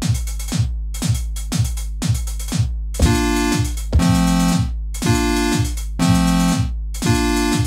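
Electronic beat from a Maschine MK3: a deep kick drum about twice a second, joined about three seconds in by sustained synth chords, played live on the pads in chords mode, that change about once a second.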